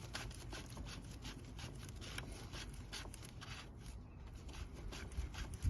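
Faint rubbing and scraping with small irregular clicks as a plastic oil filter housing cap is turned in by hand on a Ford Fiesta 1.6 diesel engine, with a low knock at the very end.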